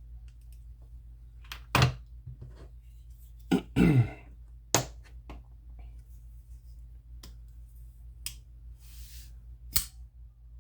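A Kizer Latt Vind Mini folding knife being worked by hand: a series of sharp clicks and knocks, a second or more apart, as the blade is flicked open and its spine knocked to test the liner lock, which is barely locking up.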